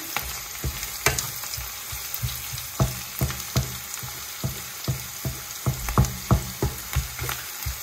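Diced onions and garlic sizzling as they sauté in oil in a nonstick frying pan, with a wooden spatula stirring and scraping against the pan in short, irregular strokes.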